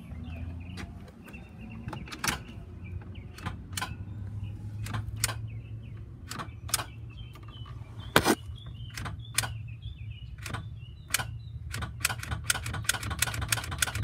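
Ticking from the starting system of a 2006 Ford E-450 bus with a 6.0-litre diesel as the key is turned with a jump box connected: a string of sharp clicks, irregular at first and coming faster near the end, over a low steady hum. The starter does not turn and the engine does not crank; the cause is unknown, and the owner suggests fuses and relays or a bad starter.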